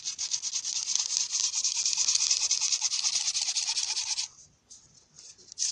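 Bow drill at work: a wooden spindle spun back and forth against a fireboard, grinding with a rapid, steady rasp of friction to make an ember. The grinding stops about four seconds in and starts again near the end.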